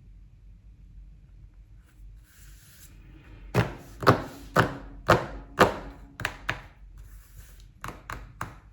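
A brief rustle, then a series of about ten sharp knocks or thuds, roughly two a second, growing fainter near the end.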